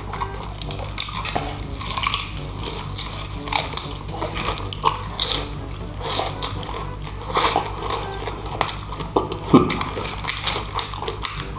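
Close-up eating of crispy fried chicken: biting and chewing, with irregular wet mouth clicks and crackles. One louder click stands out about nine and a half seconds in.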